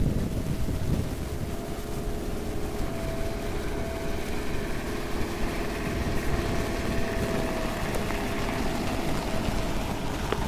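Four-wheel drive's engine running steadily as it drives toward the microphone along a sandy track, a low drone with wind rumbling on the microphone.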